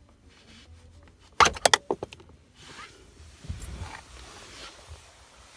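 Plastic steering-column trim covers being handled and pried loose: a quick burst of sharp clicks and rattles about one and a half seconds in, then rustling with a dull knock.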